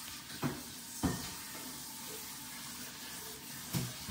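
A few small plastic clicks and knocks from a car key blade being pressed and snapped into a replacement key fob shell, over a steady hiss.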